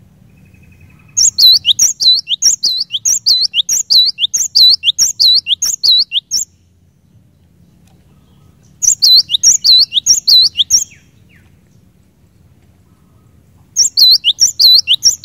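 Cinereous tit (glatik batu) singing in three bouts of loud, rapidly repeated high two-note phrases, about two phrases a second. The first bout is the longest, and the last is cut off at the end. A faint low hum runs beneath.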